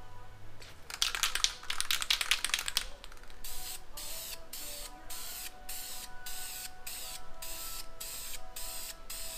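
Aerosol spray can of black wheel paint hissing in short bursts, about two a second, as it coats chicken-wire mesh. A louder spell of rapid clicking and crackling comes about a second in and lasts a couple of seconds.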